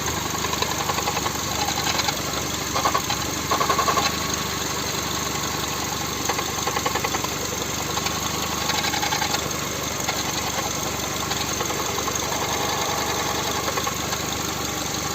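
Volkswagen/Skoda 1.6 MPI (BSE) four-cylinder petrol engine idling cold with a rapid, steady knocking tick: the cold-start knock being diagnosed.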